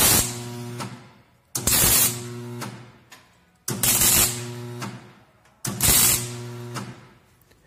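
Electric arc welder laying four short tack welds, about two seconds apart, each starting with a sharp crackle and hiss over a buzzing hum and fading out within about a second, as the short gate bars are tacked in place.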